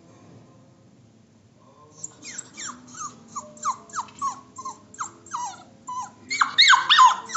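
Puppy whining in its crate: a run of short, high whimpers, each falling in pitch, two or three a second, starting about two seconds in and getting louder near the end.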